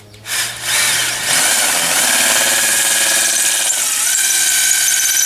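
Electric drill with a metal drill bit boring a pilot hole through wall plaster, running steadily with a high whine. The pitch dips briefly about four seconds in, then recovers.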